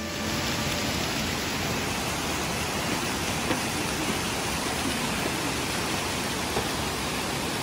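Waterfall rushing down rock ledges: a steady, even rush of falling water.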